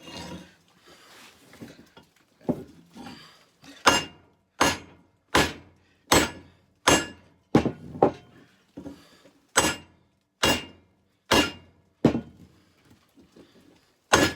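Hammer blows on steel at the anvil, forging a khopesh blade: a few lighter knocks, then about a dozen sharp, ringing strikes at a steady pace of roughly one every three-quarters of a second.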